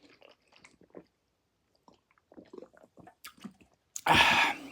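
Quiet sipping and swallowing from a freshly opened can, small wet mouth clicks, then a short loud exhale about four seconds in.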